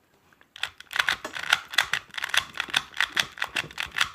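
Plastic speed cube's layers being turned quickly by hand: a rapid run of light clicks, starting about half a second in.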